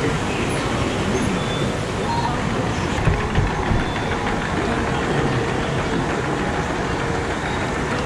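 Whitewater rushing and churning around a river-rapids ride's round raft, a steady, loud wash of noise. There are a few low thumps about three to four seconds in.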